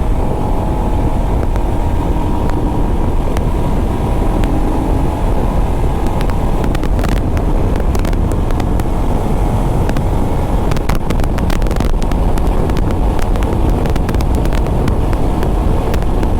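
Wind rushing over the microphone and road noise from a Royal Enfield Himalayan motorcycle cruising at speed, steady and loud, with scattered crackling ticks partway through.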